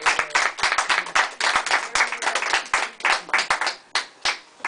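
A small group of people applauding, the clapping thinning out to a few last claps near the end.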